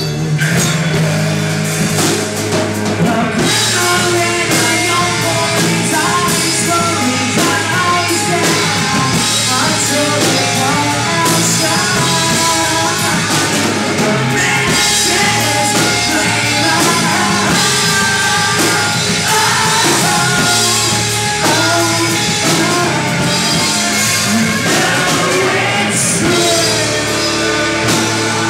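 Heavy metal band playing live: distorted electric guitar and a drum kit, with a vocalist singing over them.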